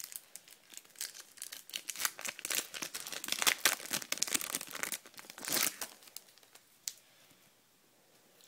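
Foil Topps Match Attax card packet being torn open and crinkled by hand, a crackling that stops about six seconds in.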